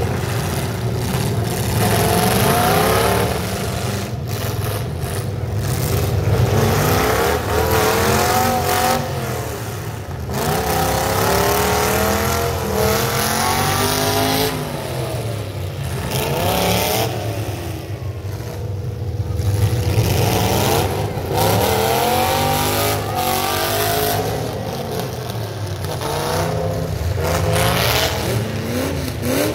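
Full-size pickup truck engines revving hard in a demolition derby, pitch rising and falling again and again as the drivers throttle up to push and ram. A few sharp knocks of trucks colliding break through the engine noise.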